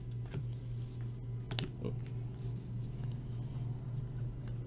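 Stiff glossy Bowman Chrome trading cards being flicked and slid against each other in the hands, giving a few short clicks and rustles, the sharpest about a second and a half in, over a steady low hum.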